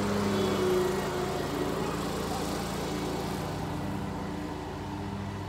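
A motor running with a steady low hum, slowly growing fainter.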